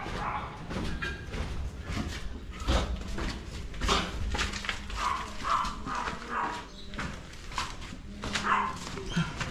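A dog giving short barks and whimpers now and then, with scattered knocks and handling noise.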